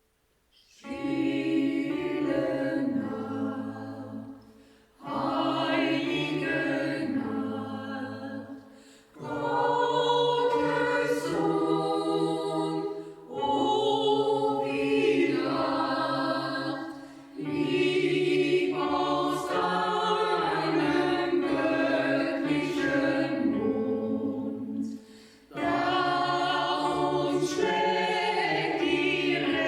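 Choir singing in sustained phrases of about four seconds each, with short breaks between them.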